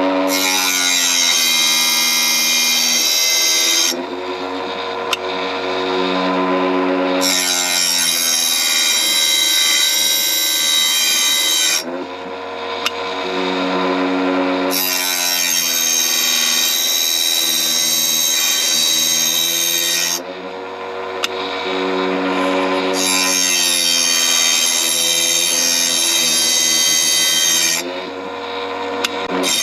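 Bench-mounted saw blade sharpener's electric motor running, its diamond wheel grinding the teeth of a circular saw blade in four passes of about four seconds each. Between passes the motor hums on its own, more quietly, as the blade is moved on to the next tooth.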